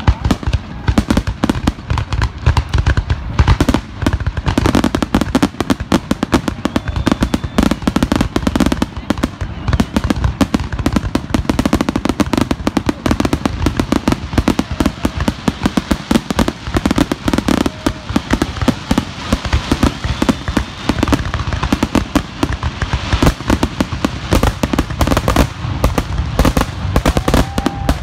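Aerial fireworks shells bursting at close range in a dense, continuous barrage: rapid bangs and crackling, many per second, with no pause.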